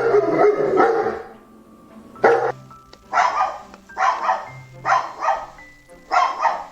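A dog barking: a burst of rapid barks at the start, one bark a little past two seconds in, then barks in quick pairs about once a second. Soft background music plays underneath.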